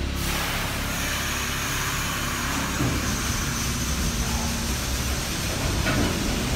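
R68 subway train with DC traction motors starting to pull out: a steady rumble with a faint high whine, a short click about six seconds in, and the rumble growing slightly as it gets moving.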